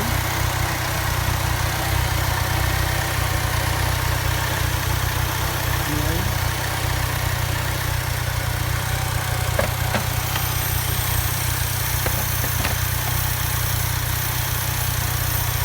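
Vauxhall Astra J petrol engine idling steadily, an even low hum with a few faint ticks about two-thirds of the way through.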